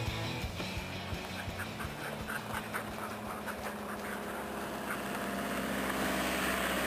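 Sled dogs running past on gravel, their quick panting coming in short, rapid beats, then a car's engine and tyres on gravel growing louder as the car they are pulling passes close by near the end.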